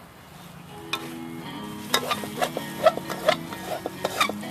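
A metal spatula clattering and scraping in a wok while food sizzles during stir-frying. The clatter starts about a second in and comes in quick irregular strokes.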